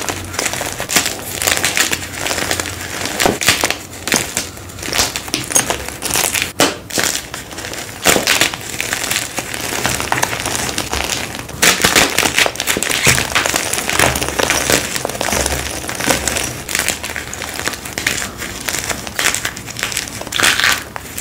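Hands crushing and crumbling chunks of blue-dyed gym chalk over a heap of chalk powder: a steady, irregular crunching made of many small crackles and snaps.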